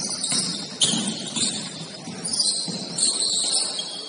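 Basketball game sounds on an indoor court: a basketball bouncing, with a sharp knock about a second in, over high-pitched court noise.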